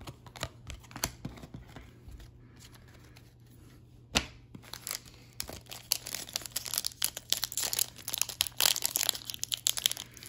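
Plastic wrapper of a Panini Prizm baseball card retail pack crinkling and tearing as it is ripped open by hand. Light clicks and taps of card handling come first, with one sharp click about four seconds in. The crinkling starts about five seconds in and grows louder toward the end.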